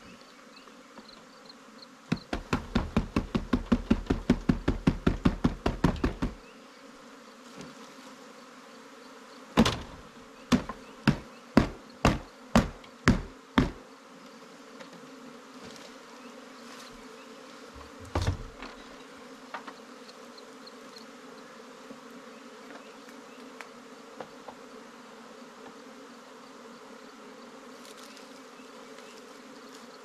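Honeybee swarm buzzing steadily, with loud knocks over it. First comes a fast run of about twenty knocks, some five a second, from about two seconds in to six. Then about eight sharper knocks follow at roughly two a second, and one more knock comes a few seconds later.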